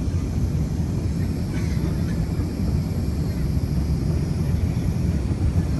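Steady low rumble of cabin noise inside an Airbus A380 during landing: engine and airflow noise heard from a window seat.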